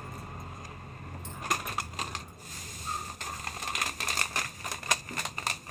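Dry pieces of cinnamon bark being handled and dropped into a steel mixer jar of whole spices: a quick run of small dry clicks and crackles starting about a second in.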